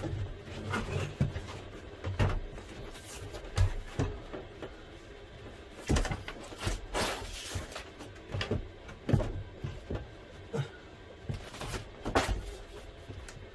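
Wooden cabinet frame of pine battens and furniture board knocking and bumping against a van's ceiling and wall as it is lifted and test-fitted. The knocks come irregularly, with a couple of short scrapes.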